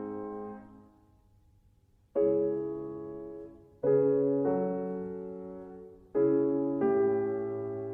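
Slow background piano music: sustained chords, each struck and left to die away, with a brief pause about a second in before the chords resume.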